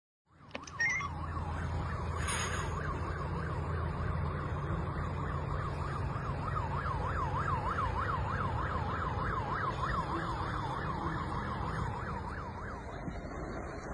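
Emergency vehicle siren in a fast rising-and-falling yelp, over a low steady rumble; it fades near the end.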